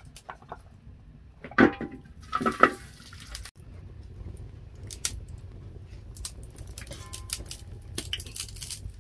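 A metal bowl knocks and scrapes against a metal cooking pot, ringing briefly, as blocks of solid fat are tipped in. After that, the wood fire under the pot burns with a low rumble and scattered crackles.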